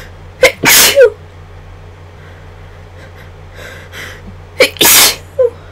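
A person sneezing strongly twice, about four seconds apart. Each sneeze is an induced one, led by a few gasping breaths in and a short catch before the loud burst.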